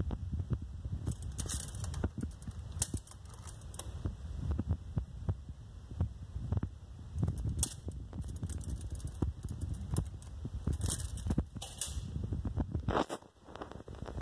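Low, uneven rumble of a handheld microphone being moved and handled, with scattered clicks and a few brief rustles.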